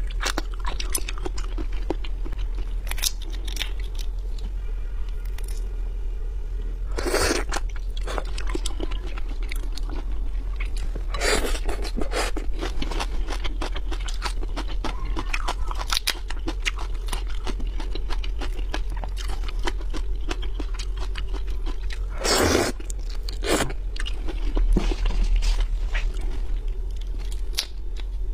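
Close-miked mukbang chewing of raw shrimp: a steady run of small wet clicks and crunches, with a few louder crunches scattered through, over a steady low hum.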